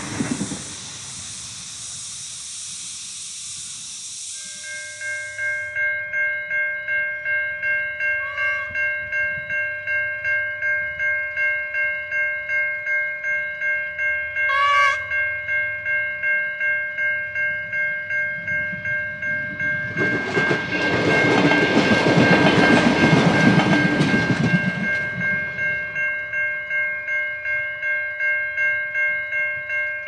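Level crossing bells ringing with a steady pulse of about two strokes a second, starting a few seconds in. From about twenty seconds in, a NSWGR 620/720 class vintage railcar passes over the crossing for several seconds, louder than the bells.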